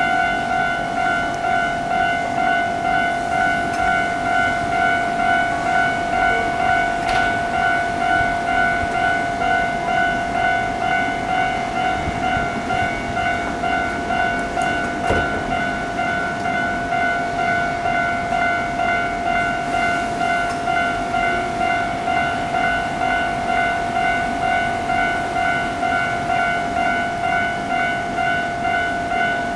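Japanese railway level-crossing alarm ringing continuously, an electronic bell tone repeating in an even, rapid rhythm, with the rumble of a train passing under it.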